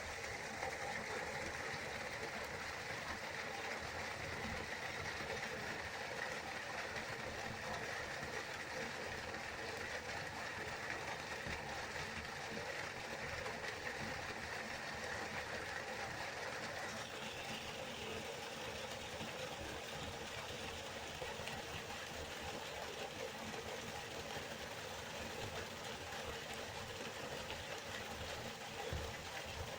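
A river's flowing water, a steady even rush; its tone shifts slightly a little past halfway through.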